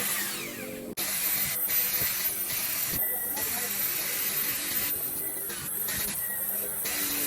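A steady hissing noise, with a brief dropout about a second in.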